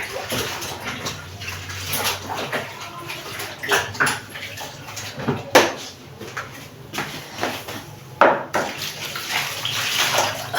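Water splashing and dripping as a towel is wetted and worked in a basin of vinegar-and-water cleaning solution, with a few sharp knocks, the loudest about halfway through.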